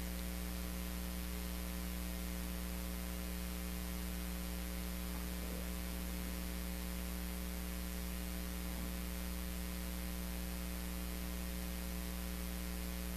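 Steady electrical mains hum, a low buzz with a ladder of higher overtones, over a faint hiss.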